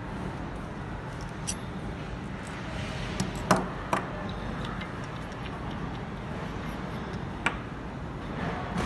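A few sharp clicks and knocks of small metal tools and radiator-valve parts being handled and set down on a workbench, the loudest two close together about three and a half seconds in, over steady background noise.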